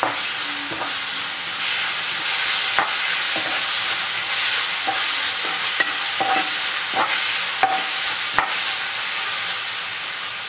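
Onion, capsicum and green chilli slices coated in soy sauce, chilli sauce and ketchup sizzling steadily in a frying pan while being stirred, with about ten light clicks and scrapes of a metal spoon against the pan.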